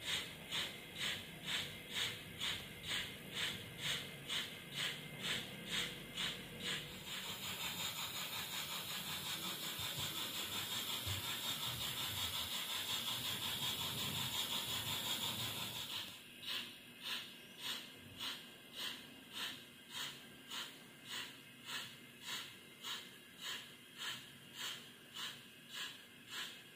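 Sound decoder in a Roco model of an Italian State Railways Gr.880 steam tank locomotive, its small speaker playing steady exhaust chuffs, about two a second, as the model runs. About seven seconds in the chuffing gives way to a continuous steam hiss. The chuffs resume after about nine seconds of hiss.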